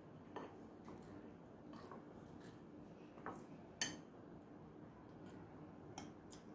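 Faint clinks and scrapes of a metal spoon against a glass bowl while stirring a stiff flour-and-cocoa cake mix. A sharper clink comes just before four seconds in, as the spoon is laid down in the bowl.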